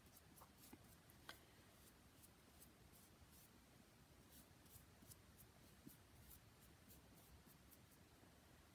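Near silence, with faint, irregular scratchy strokes of a flat paintbrush dabbing wet sealer onto a vinyl doll's leg and toes.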